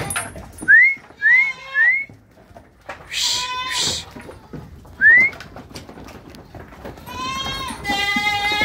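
Goats bleating, several long wavering calls, with a few short rising whistle-like chirps in between.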